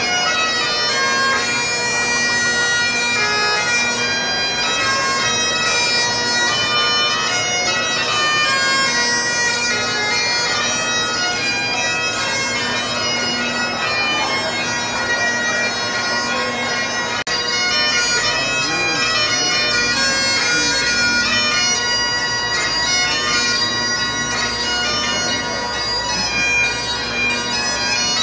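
Great Highland bagpipes playing a tune over their steady drones.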